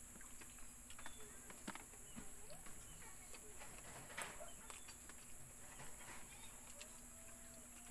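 Faint steady high insect drone, with soft scattered clicks and rustles of fingers picking rice and fish off a banana leaf while eating. A faint animal call comes in near the end.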